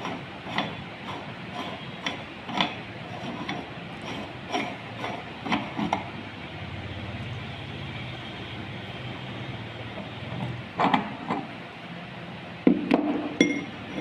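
Meat grinder running with a steady hum as jelly candy goes through it, with irregular clicks and knocks in the first half. Near the end come a few sharp clinks.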